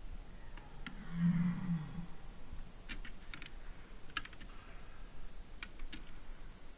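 Red deer giving a short low call about a second in, lasting about a second. A few faint sharp ticks follow through the rest.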